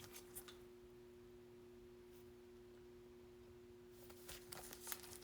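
Near silence: a faint steady two-tone hum, with faint rustling and clicks starting about four seconds in.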